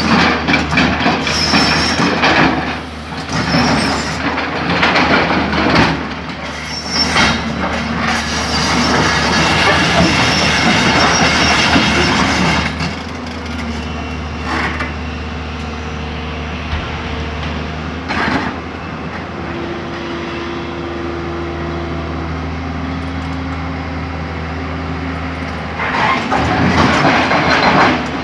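Tata excavator working: the engine runs steadily throughout, with loud stretches of grinding and squealing for roughly the first twelve seconds and again near the end. In between it runs more evenly with a steady tone.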